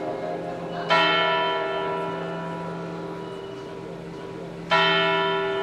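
Tower clock bell of the Zeitglocke in Bern struck twice, about four seconds apart. Each stroke rings on and slowly fades.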